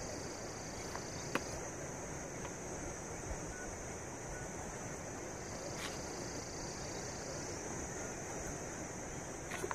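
Steady high-pitched chirring of crickets or other night insects, with a few faint clicks.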